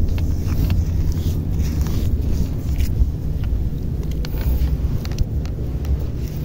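Wind buffeting the microphone, a steady low rumble, with scattered small clicks throughout.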